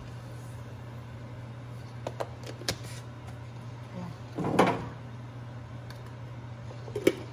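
A metal spoon stirring thick rice porridge in a stainless steel pot, knocking and scraping against the pot a few times, the loudest stroke about four and a half seconds in. A steady low hum runs underneath.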